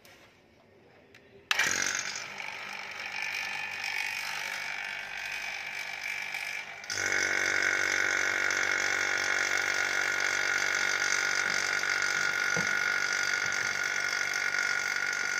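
Electric refrigeration vacuum pump starting suddenly about a second and a half in and running steadily with a high whine over a hum; about seven seconds in it steps up louder and holds steady. It is evacuating the refrigerant lines of a newly installed split air conditioner.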